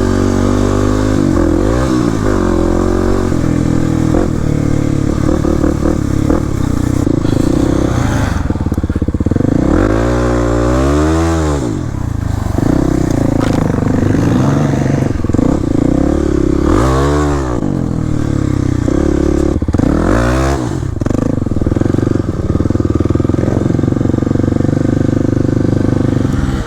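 Single-cylinder dual-sport dirt bike engine running hard, the revs swinging up and down several times as the throttle is opened and closed, most plainly about ten, seventeen and twenty seconds in.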